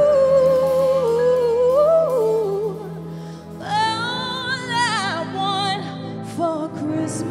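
A woman singing a slow ballad into a microphone, with wide vibrato on long held notes, over sustained backing chords. About three and a half seconds in she jumps to a higher held note that falls away about a second and a half later.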